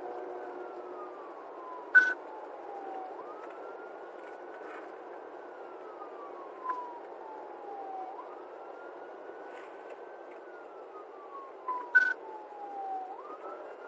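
Police car siren in a slow wail, rising quickly and falling slowly about once every five seconds, heard from inside the patrol car over steady road noise. Two sharp clicks, about two seconds in and near the end, are the loudest sounds.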